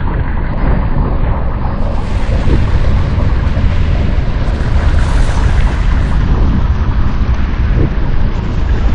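RPG-7 launch blast slowed down to slow-motion speed: a deep, steady rumbling roar with no separate bangs.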